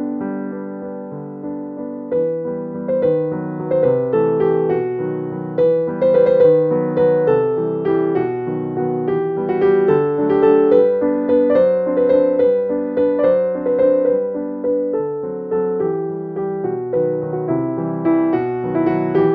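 Background music played on a piano-type keyboard: a steady, flowing run of notes.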